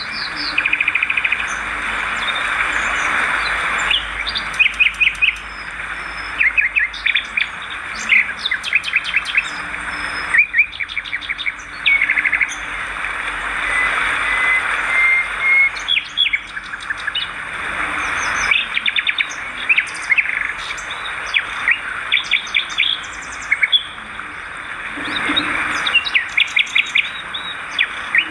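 Swiftlets twittering: a dense, continuous chorus of quick chirps and clicking trills from many birds.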